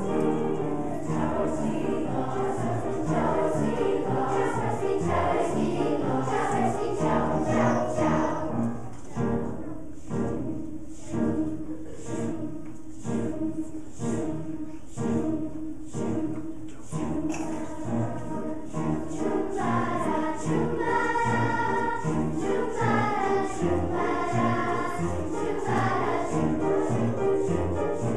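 A large children's choir singing in unison and parts, with a softer passage in the middle before the voices swell again.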